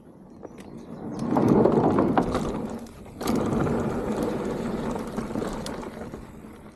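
Mountain bike rolling fast over a dirt trail: tyre noise and rattle, with the freehub's pawls clicking. It builds about a second in, drops off briefly near the three-second mark, picks up again and then fades.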